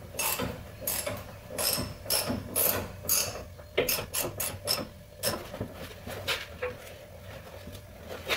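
Ratchet wrench worked in short strokes while tightening a sway bar link nut, a quick rasp of pawl clicks on each return swing, about two a second, coming faster near the middle and tapering off in the last few seconds.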